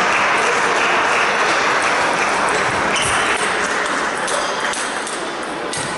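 Steady din of a busy table tennis hall, with scattered clicks of celluloid balls striking tables and bats from the many matches in play. It eases slightly after about four seconds.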